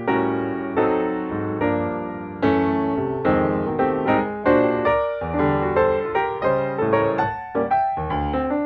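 Background piano music: chords and melody notes, each struck and then fading, at a steady unhurried pace.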